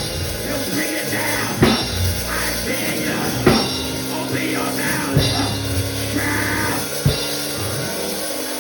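Live church band playing: a drum kit with hard hits about every two seconds over held low notes.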